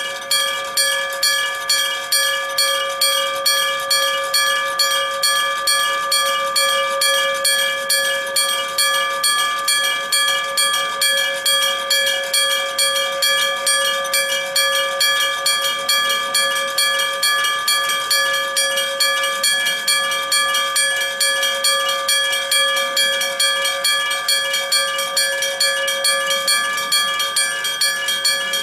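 Electric-bell (denshō-type) railway crossing warning bell: a striker hits a metal bell about twice a second, each strike ringing on into the next.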